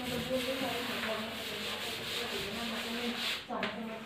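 Chalkboard duster rubbing back and forth across a chalkboard, a steady scrubbing hiss as the chalk is wiped off.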